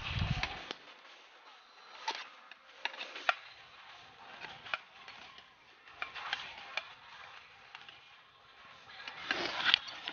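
Knife blade scraping and clicking against a thin aluminium foil baking tray as a baked loaf is loosened from its sides: irregular sharp clicks and scrapes, the loudest near the end, after a dull bump at the very start.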